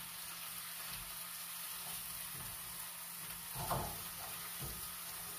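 Vegetables sizzling steadily as they fry in hot avocado oil in a pot, with a few soft knocks, the loudest about two-thirds of the way through.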